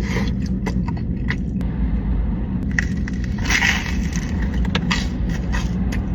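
Steady low hum of a running car heard from inside the cabin, with close-up clicks, crackles and rustling of food and its packaging being handled and eaten.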